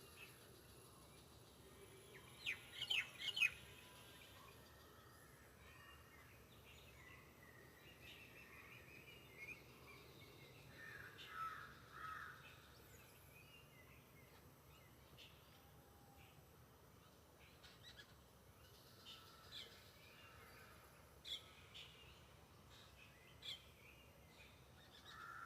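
Small birds chirping faintly over a quiet background: a cluster of sharp chirps about three seconds in, then scattered short calls.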